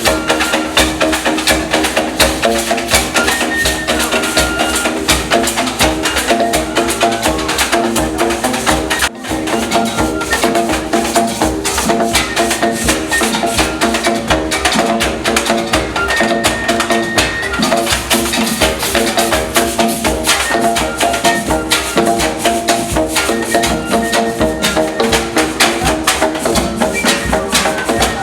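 Music driven by fast, dense percussion, with shaken and knocked strokes under repeating short pitched notes; it briefly drops out about nine seconds in.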